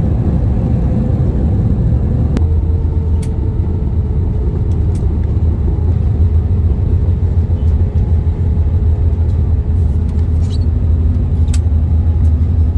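Cabin noise inside an Airbus A321 rolling on the ground after landing: a steady low rumble of engines and wheels, its higher rushing noise easing about two seconds in, with a few faint clicks.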